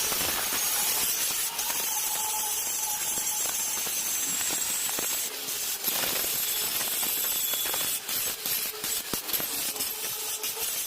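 Gas cutting torch hissing steadily as it cuts through a steel trolley chassis, with scattered sharp clicks and crackles in the last few seconds.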